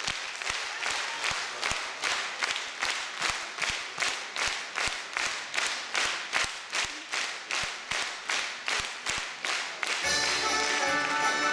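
A steady beat of sharp strokes, about two and a half a second, with no melody over it. About ten seconds in, a folk instrumental band comes in playing a tune.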